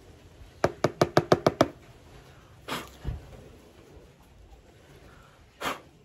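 A quick run of about seven sharp taps, then two single knocks later on: the mesh filter of a Xiaomi Mijia mini handheld vacuum being knocked to shake the dust out of it.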